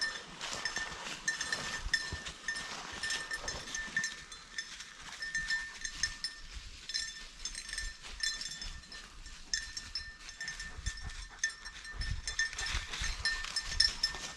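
A small bell keeps jingling irregularly, as on a running bird dog's collar, over crackling footsteps through dry brush.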